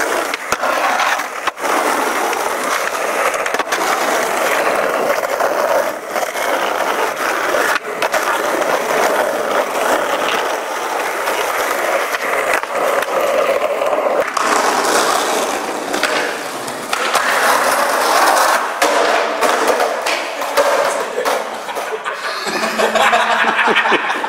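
Skateboard wheels rolling over rough asphalt in a continuous gritty rumble, broken by repeated sharp clacks of the board popping and landing.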